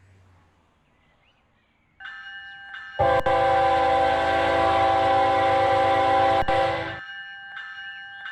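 Freight locomotive air horn sounding a chord of several notes. It comes in softly about two seconds in and swells to a loud blast about a second later. The blast is held for about four seconds, then drops back to a softer note near the end.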